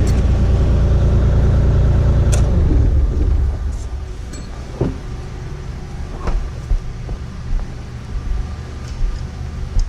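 Kubota KX040-4 mini excavator's diesel engine running at higher revs, then dropping to a lower, quieter running about three seconds in. A few scattered metallic knocks sound over the engine.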